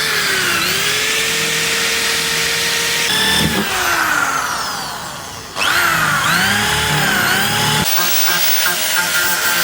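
Electric power tool running on sheet metal, its motor whine dipping and recovering again and again as it bogs under load. It winds down about five seconds in, starts again sharply, and runs at a steadier pitch near the end.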